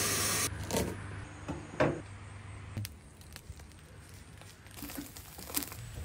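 A knife scraping under a scallop in its shell: a few short scrapes and clinks of blade on shell and board, after a brief burst of hiss at the start.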